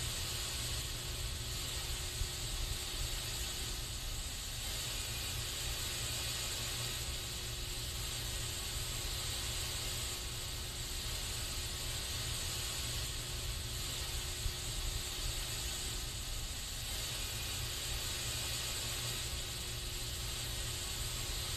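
Aerosol spray can releasing a continuous spray: a steady, even hiss with no breaks.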